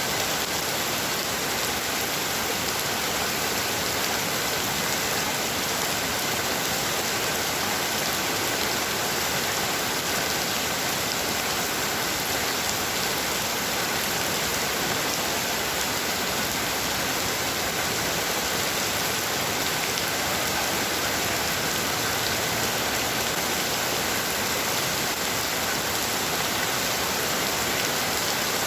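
Heavy rain falling steadily, a dense even hiss of drops on surfaces with no change in strength.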